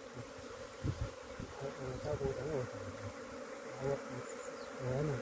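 Honeybees buzzing in a steady swarm hum, with single bees flying close past so that their pitch rises and falls. There is a soft knock about a second in.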